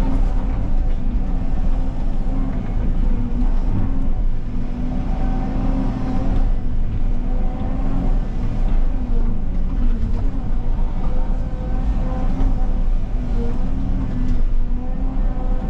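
Diesel engine of a tracked excavator running steadily under working load, its pitch dipping briefly several times.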